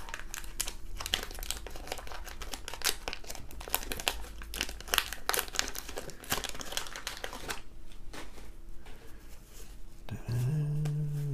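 Paper wrapper of a 1991 Fleer basketball card pack crinkling and tearing as it is peeled off the stack of cards, with quieter card handling after about seven seconds. Near the end a person starts humming.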